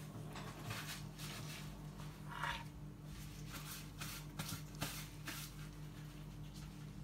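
Metal spoon stirring a mayonnaise-dressed tuna salad in a plastic bowl: faint, soft wet scrapes and squishes, a few a second at irregular moments, over a steady low hum.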